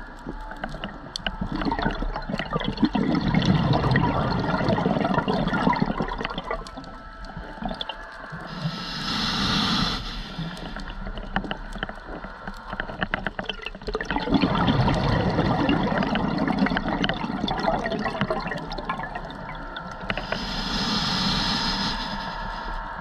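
Scuba diver breathing through a regulator underwater: twice, a long rush of exhaled bubbles is followed by a short hiss of inhaling through the regulator.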